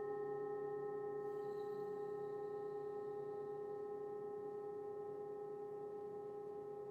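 Singing bowl ringing on after a strike, one low steady tone with several higher overtones, slowly dying away.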